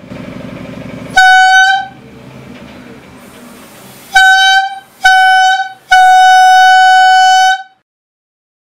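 Homemade balloon trumpet: a balloon membrane stretched over a plastic bottle, made to vibrate by blowing hard through a cylindrical mouthpiece, sounding loud trumpet-like honks all at the same steady pitch. It gives a short honk about a second in, two more short ones a few seconds later, then a long held note of nearly two seconds.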